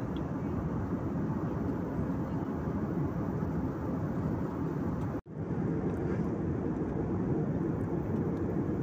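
Steady rushing cabin noise of a jet airliner in cruise flight, engine and airflow, heard from a window seat. The sound cuts out abruptly for a split second about five seconds in, then returns.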